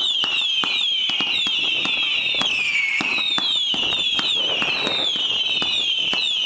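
Xplode 'Smile From Hell' firework cake (CNY305) firing shot after shot, about two or three a second. Each shot sends up a whistling tail whose pitch falls, and the whistles overlap amid sharp pops.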